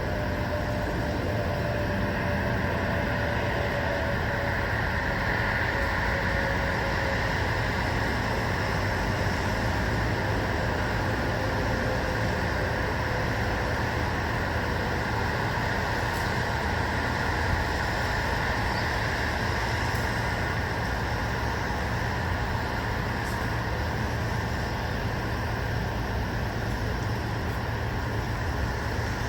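Steady, even white-noise rush, with a faint tone sliding slowly down in pitch over roughly the first dozen seconds.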